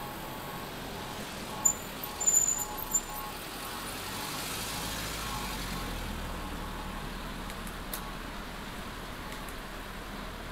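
City street traffic heard from a bicycle, with a vehicle passing and swelling up about four seconds in, then fading. A few short, sharp, high-pitched squeaks about two seconds in.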